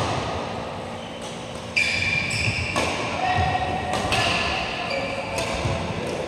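Doubles badminton rally: rackets strike the shuttlecock in several sharp smacks about a second apart, with high squeaks from shoes on the synthetic court.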